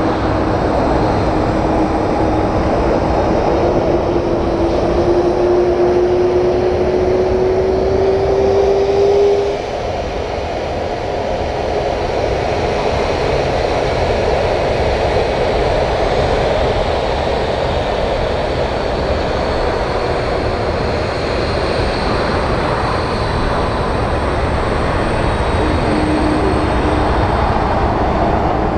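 Airbus A310 (RCAF CC-150 Polaris) twin turbofan jet engines running as the airliner taxis close by: a steady rumble with a whine that climbs slightly in pitch and stops about nine seconds in, the sound dropping a little in level there.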